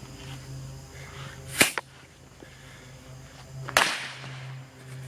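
Two sharp cracks about two seconds apart, the first followed at once by a smaller snap, typical of small firecrackers going off.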